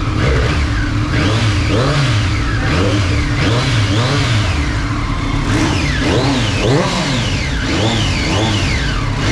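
Triumph Street Triple's inline-three engine revved repeatedly while standing, the pitch rising and falling again with each blip, about once a second.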